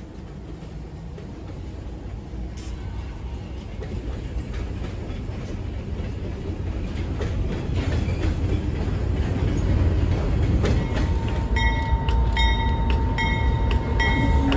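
Freight train rolling past, a low rumble of covered hopper cars on the rails that grows steadily louder. About eleven seconds in, diesel locomotives approach with the engine rumble rising, and a bell rings in an even rhythm about twice a second.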